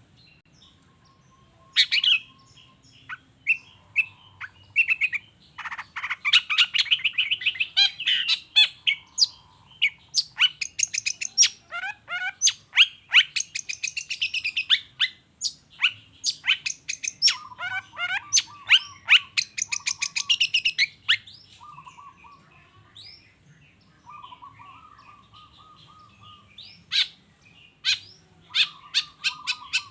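Long-tailed shrike (cendet) singing a fast, varied stream of sharp chattering and squeaky notes. Runs of lower, buzzy repeated notes come through in the second half, and there are short pauses between phrases.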